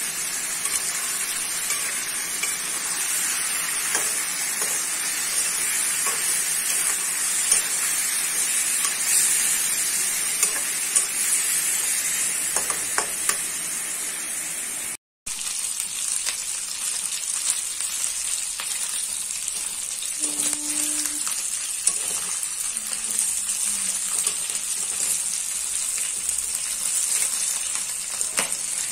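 Chicken pieces sizzling in hot oil in a kadai on a gas stove, with a metal spoon scraping and clinking against the pan as they are stirred. The sound cuts out for a moment about halfway through.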